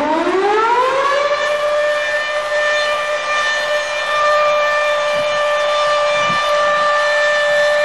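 A siren winding up: its pitch rises over about the first second, then it holds one steady wail.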